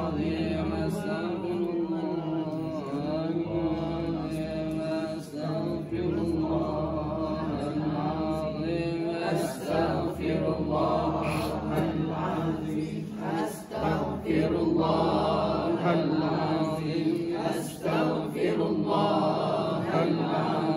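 Several men's voices chanting prayers together in a steady, continuous recitation, broken by a couple of short pauses.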